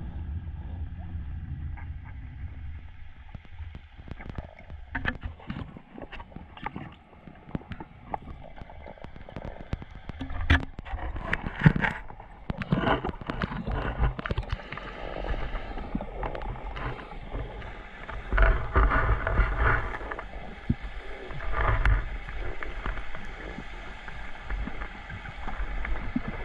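Underwater noise: a low, muffled rumble with gurgling water and many scattered clicks and knocks, which grow busier about ten seconds in, with heavier low thumps a little past the middle.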